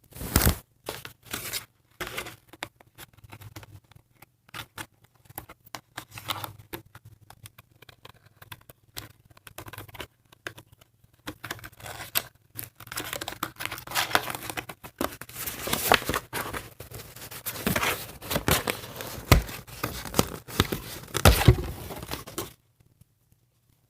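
Doll packaging being handled as the ties holding the doll are undone: irregular rustling, crinkling, scraping and clicking with some tearing, busier in the second half and stopping abruptly near the end.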